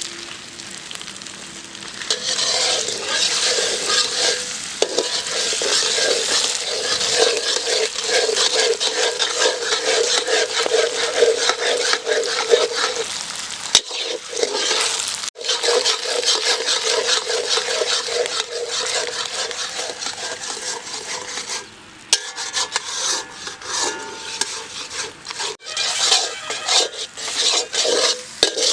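Egg podimas (scrambled egg) frying in a pan, sizzling as a spatula stirs and scrapes it in rapid strokes. The sound breaks off briefly a few times.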